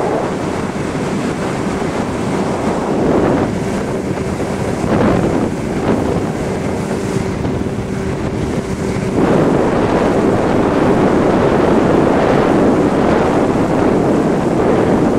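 50 hp Johnson outboard motor driving a speedboat at planing speed, its steady hum mixed with wind buffeting the microphone and water rushing past the hull. About nine seconds in, the wind and water noise grows louder.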